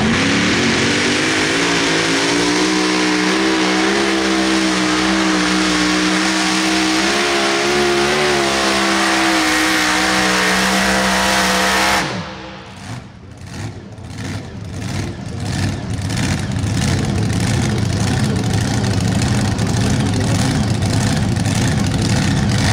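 Mini rod pulling tractor's engine running flat out under load, holding a high, steady pitch. About halfway through it changes abruptly to a quieter, rough, crackling engine sound that builds back to full loudness.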